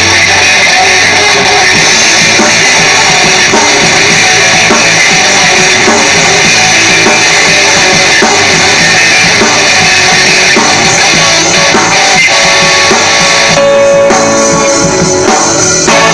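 Live rock band playing loud: electric guitar, bass guitar, drum kit and saxophone. Heard through a phone-style recording close to the stage speakers.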